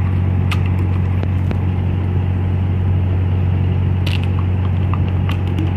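A steady low mechanical hum, like an idling engine, with a few sharp clicks and crackles from a plastic soda bottle being bitten and carried by a dog.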